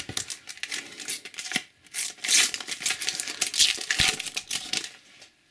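A Panini sticker packet being torn open by hand: a run of crackling rips and wrapper crinkling, loudest in two spells near the middle, dying away near the end.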